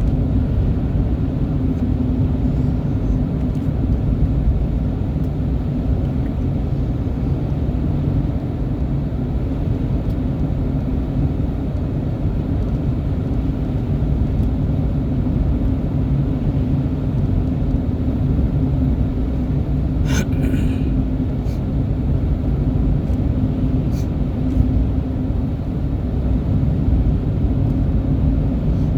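Steady low rumble of a running vehicle engine with a constant hum, broken by a few brief clicks about two-thirds of the way through.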